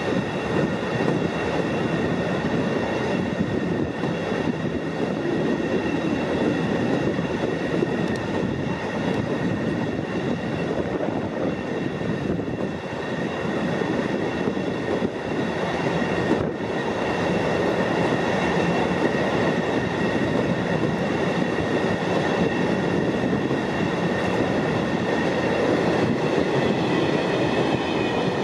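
Empty flat freight wagons rolling past on a departing train, a steady rumble and clatter of steel wheels on the rails with a thin high-pitched ringing tone over it.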